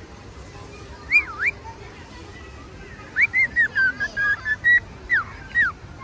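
Cockatiel whistling its song. Two loud swooping whistles come about a second in, then a quick run of short whistled notes, and two more swooping whistles near the end.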